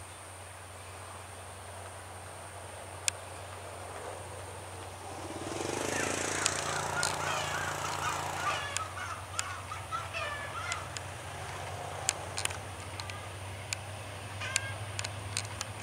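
Low, steady drone of a D19E diesel-electric locomotive's engine as it approaches slowly, growing louder about five seconds in. A burst of high, wavering calls comes about six seconds in and lasts a few seconds, with a few sharp clicks near the end.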